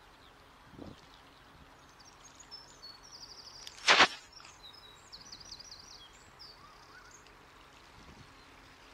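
A single sudden loud rush of noise about four seconds in, over small birds twittering in quick, high, chattering trills and a faint low hum.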